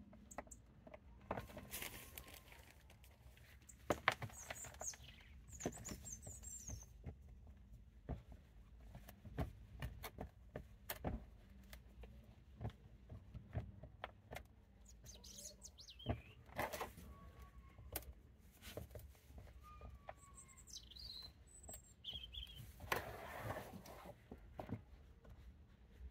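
Hands pressing and working potting soil into a bonsai pot: irregular soft crackles, rustles and taps. Small birds chirp briefly a few times in the background.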